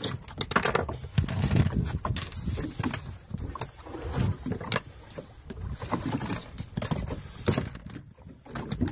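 A blade scraping barnacles off a sea turtle's shell, giving irregular sharp scratches and clicks over low handling noise.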